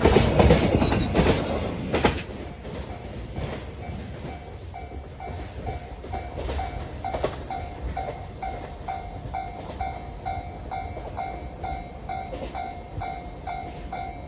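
Container wagons of a freight train clattering over the rail joints as the tail of the train passes, loud for about two seconds and then fading to a low rumble with scattered clicks. From about four seconds in, a level-crossing warning bell rings in a steady repeating ding.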